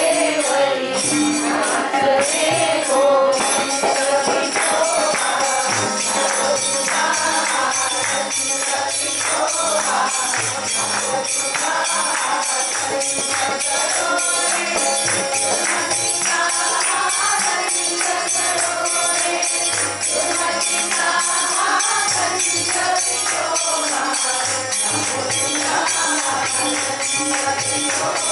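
Group singing a Marathi devotional bhajan to Vithoba, accompanied by harmonium, with jingling hand cymbals keeping a steady beat.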